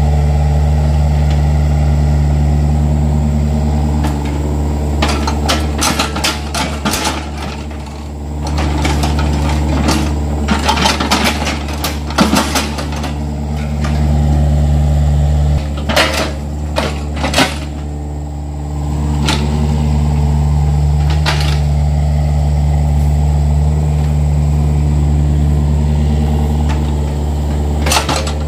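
Yanmar mini excavator's diesel engine running steadily under hydraulic load, with bursts of clattering knocks as the bucket digs into and drops loose soil.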